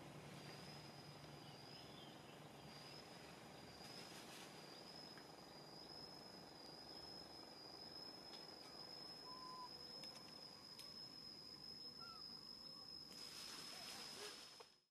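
Faint, steady high-pitched drone of a single insect, held without a break over soft outdoor background hiss. A short brief note sounds about nine seconds in, and a burst of hiss comes near the end before it all fades out.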